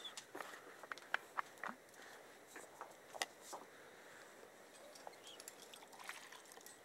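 Faint, irregular clicks and scuffs from a rock climber's shoes, hands and harness gear against the rock as he moves up the wall, thickest in the first few seconds.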